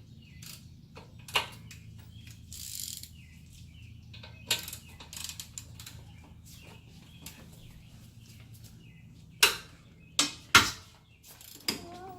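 Hand tools on a car's rear brake caliper bracket: a socket ratchet clicking and metal tools knocking and clanking, with three loud sharp knocks about nine to eleven seconds in.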